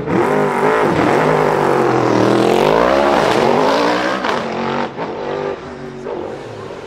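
Hillclimb prototype race car launching from the start line, its engine revving hard and rising in pitch through several quick upshifts. The engine grows fainter over the last couple of seconds as the car pulls away.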